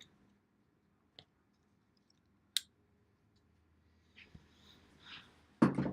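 Knife cutting open a cardboard shipping box: two sharp isolated clicks, then faint scraping and rustling as the tape is cut.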